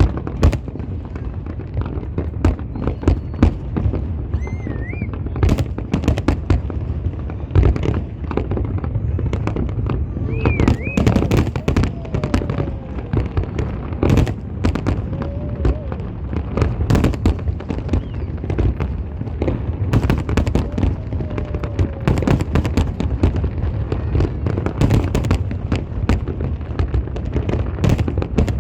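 Fireworks display: a rapid, irregular string of bangs and crackles over a steady low rumble.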